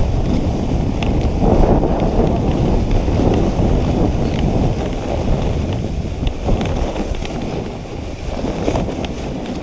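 Dog sled moving over snow: a steady rushing noise of the runners on the snow and wind buffeting the microphone, easing a little near the end, with faint small clicks and rattles.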